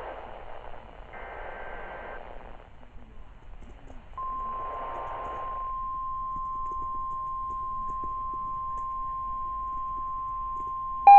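NOAA Weather Radio SAME alert header: buzzy digital data bursts about a second long, then a single steady warning alarm tone from about four seconds in, signalling that a new warning is about to be read.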